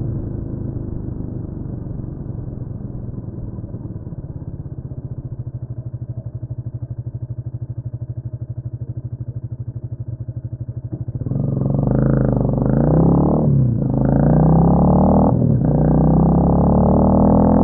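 Honda CMX250 Rebel's engine easing down to an idle with an even pulse. About eleven seconds in it pulls away, its pitch rising through the gears with two short breaks at the upshifts.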